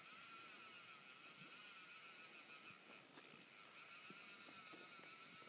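Faint, steady rush of river current.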